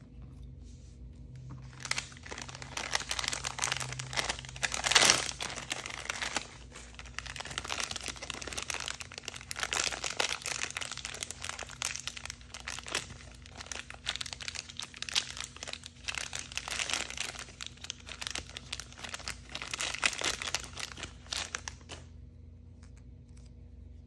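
Clear plastic toy wrapper crinkling and tearing as it is opened by hand: a dense run of crackles that starts about two seconds in, has a louder rip about five seconds in, and stops a couple of seconds before the end.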